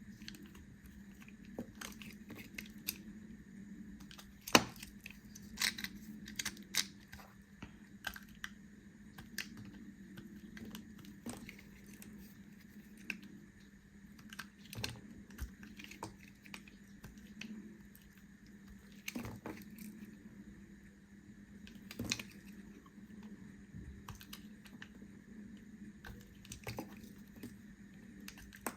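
A knife cutting through bars of soap: irregular crisp crunches and clicks as the blade goes in, the loudest about four and a half seconds in, with a faint steady hum underneath.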